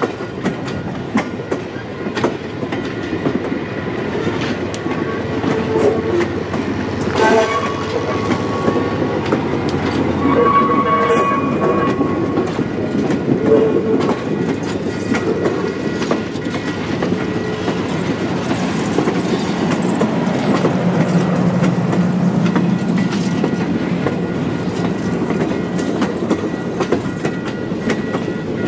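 Steam-hauled passenger excursion train rolling by, its wheels clicking steadily over the rail joints. Two short ringing tones come through about seven and eleven seconds in.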